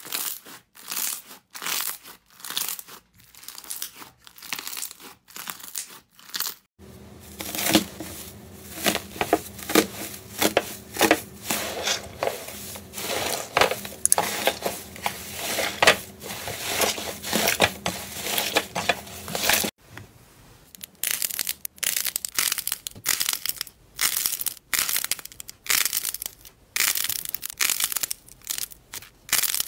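Slime being squeezed and pressed by hand, making rapid crackling, popping and squelching clicks. The sound comes in three stretches, with a change of clip about 7 s and 20 s in; the middle stretch has a steady low hum beneath it.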